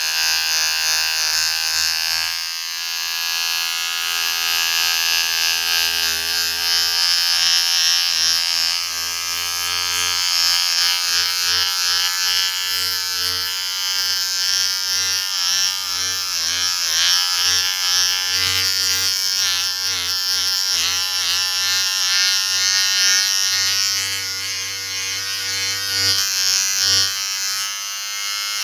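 Electric shaver running with a continuous buzz, its pitch wavering and dipping briefly several times through the middle.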